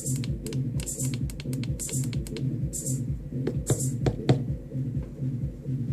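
Electronic drum loop from a Maschine groovebox playing through Traktor. It repeats a bass-heavy pattern with a hissy hi-hat about once a second and many short, sharp clicky percussion hits.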